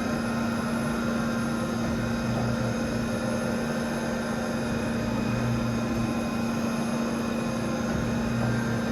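A 2001 Wagner CNC machining centre running: a steady machine hum with several constant tones over it, and a lower throb that swells about every three seconds.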